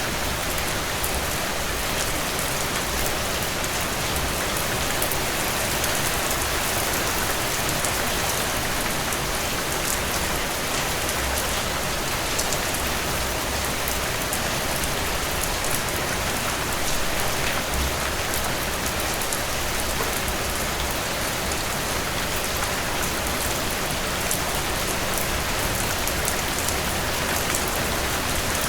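Steady heavy rain falling, an even hiss of rainfall with many small drop ticks, without thunder.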